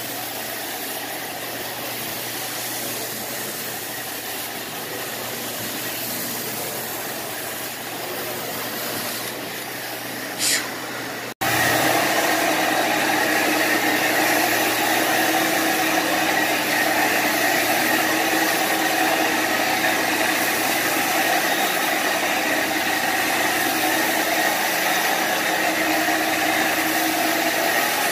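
Carpet-cleaning machine's motor running steadily. About eleven seconds in, the sound cuts out for an instant and comes back louder, with a steady whine in it.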